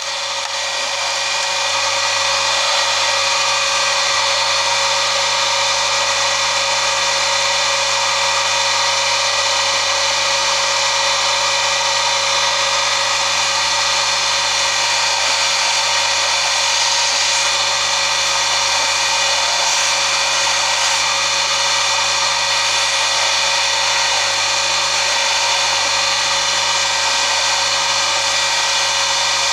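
Bench polishing motor running steadily, its spinning polishing wheel working a silver pendant held against it, with a steady motor whine over the rushing of the wheel.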